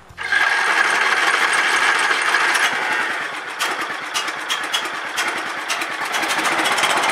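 A 17.5 hp riding lawn mower engine comes in suddenly and runs with a fast, even firing beat, fed on gasoline vapor drawn into its carburetor intake with the fuel line clamped off. It dips for a few seconds midway, then picks back up.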